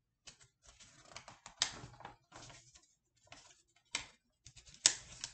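Paper pages of a picture book being handled and turned: irregular rustling and crinkling with a few sharp snaps.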